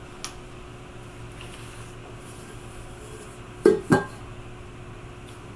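Steady low room hum, then about three and a half seconds in two quick knocks in a row from a stainless steel pot being handled and set down on the countertop.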